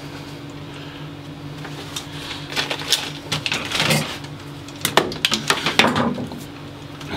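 Scattered clicks and rustles of electrical cables and hand tools being handled during wiring work, over a steady low hum.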